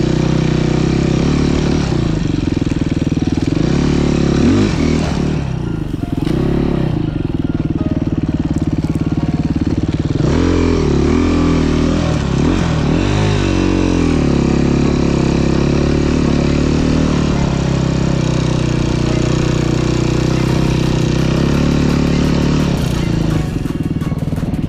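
Dirt bike engine running under way, its pitch rising and falling with the throttle, with quick revs about four seconds in and again around ten to fourteen seconds in.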